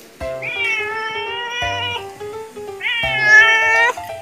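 A cat giving two long, drawn-out yowling meows, the second louder, over background music with a slow bass beat. The yowls are a cat's angry protest at being forced into clothes.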